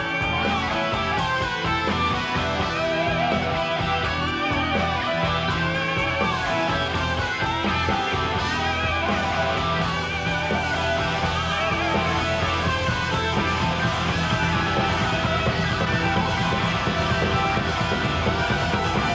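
Live hard-rock band in an instrumental guitar passage: two electric guitars play wavering, vibrato-laden lead lines over the bass and drums.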